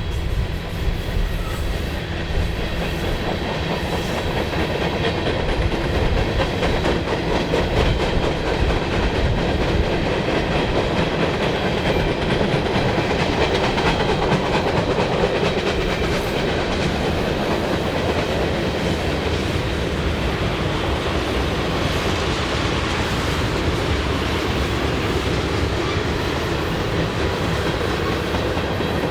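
Freight train cars rolling past with a steady rumble of steel wheels on rail, with clickety-clack from the wheels over the track.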